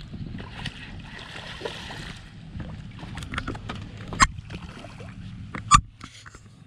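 Knocks and clatter on a small fishing boat, with two sharp bangs about four and six seconds in, over a low steady hum.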